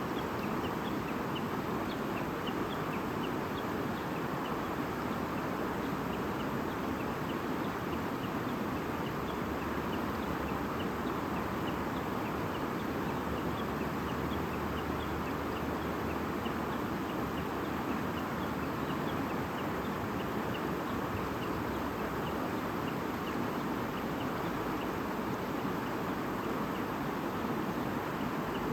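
Stream babbling steadily, with many short, high chirps of small birds scattered throughout.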